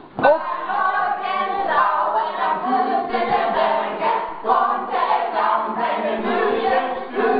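A group of people singing and calling out together, many voices at once, starting with a loud shout.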